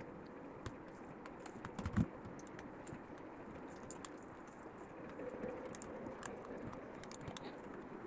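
Light clicks and taps of plastic and metal laptop parts being handled and fitted as the Alienware m15 R6's cooling fan and heatsink are set back into the chassis. One louder knock comes about two seconds in.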